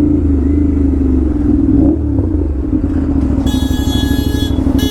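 Aprilia RS 457 parallel-twin engine through an SC Project aftermarket exhaust. It swells briefly just before two seconds in, then the note drops into an uneven, pulsing low-rpm beat as the throttle closes. Near the end a shrill high tone sounds for about a second, and again briefly at the very end.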